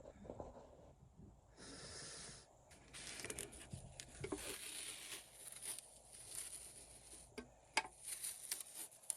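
Faint workbench handling noises: uneven rustling and scraping, with a couple of light taps near the end.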